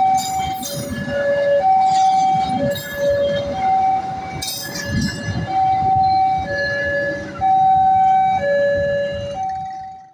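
Railway level-crossing warning alarm ringing a two-tone signal, a high and a low tone alternating, each held just under a second. Under it the coaches of a passing train rumble and clack on the rails, with a few short high screeches. Everything fades out at the very end.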